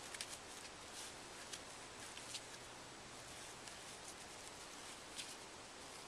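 Faint handling sounds of a cord being pulled and rustled by hand, with a few light ticks.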